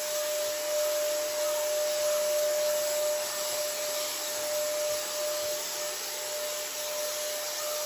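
Battery-powered DEKO paint spray gun running steadily as it sprays primer: a motor whine at one even pitch over a loud airy hiss.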